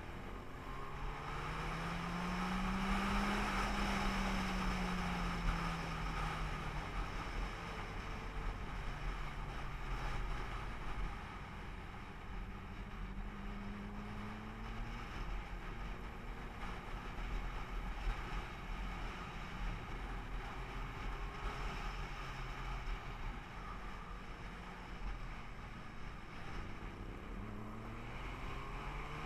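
Vehicle engine running under way, its pitch climbing and falling as it speeds up and slows, over a steady rush of wind. It is loudest a few seconds in, settles lower through the middle, and rises again near the end.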